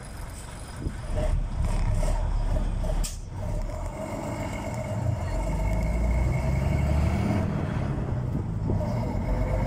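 Vintage bus engine, heard from aboard, revving up as the bus pulls away and gathers speed, with one sharp knock about three seconds in.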